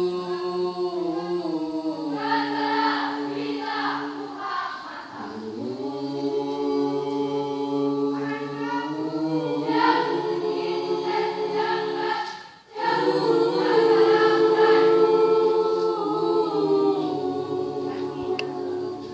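School choir singing held chords in several voice parts, without clear words. The voices break off briefly about two-thirds of the way through, then come back in.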